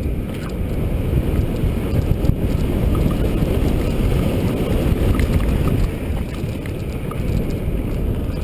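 Wind rumbling on the microphone over a mountain bike rolling along a dirt trail, with scattered small clicks and rattles.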